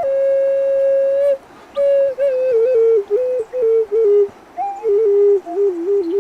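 Solo flute playing a slow, plaintive melody. A long held note is followed by a short breath, then phrases that step downward with quick ornamental turns between notes.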